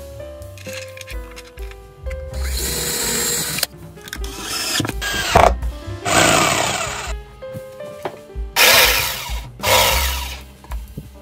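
Background music, broken by a power tool running in several short bursts of a second or so each.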